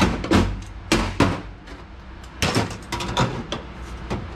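Clecos being worked with cleco pliers in the holes of an aluminium seat panel: a run of sharp metallic clicks and clanks at irregular intervals, loudest at the start and again about two and a half seconds in.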